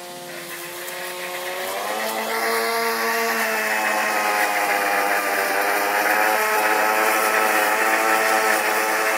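Electric motors of a homemade robot lawn mower running with its cutter on, giving a whine of several steady tones. The pitch rises about two seconds in, then holds steady as it grows louder.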